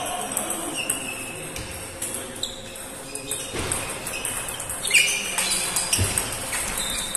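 Table tennis rally: the ball clicking off the bats and bouncing on the table in irregular sharp knocks and short pings, echoing in a large hall, with more ball strikes from neighbouring tables.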